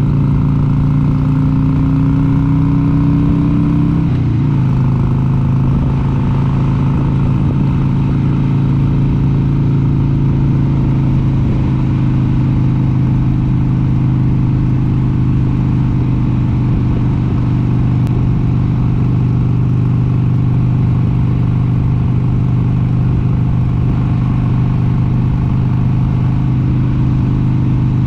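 1996 Harley-Davidson XLH883 Sportster's air-cooled V-twin running under way: its note climbs for the first few seconds, drops suddenly about four seconds in as it shifts up a gear, then holds steady at cruising speed.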